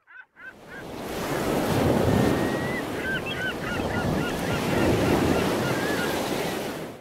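Sound bed of ocean surf, waves washing in and swelling twice, with a bird's short repeated calls over it from about three seconds in. It fades in at the start and cuts off at the end.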